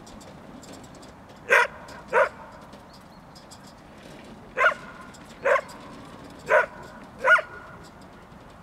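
A dog barking at a stuffed bear decoy on a wheeled cart: six sharp barks, in three pairs a little under a second apart.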